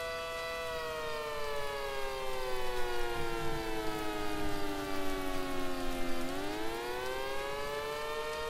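Synthesized Federal Signal SD-10B siren sounding a two-tone chord: it holds steady briefly, then slides slowly down in pitch for about five seconds and swings quickly back up near the end. This is one rising-and-falling wail cycle of the attack signal.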